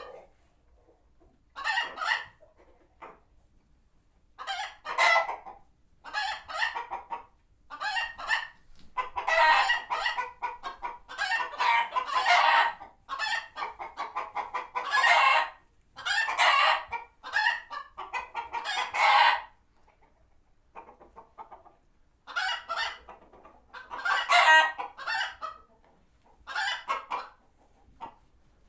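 A flock of chickens clucking and giving alarm calls in repeated bursts of rapid notes, with short pauses between bursts: an alarm reaction to a hawk nearby.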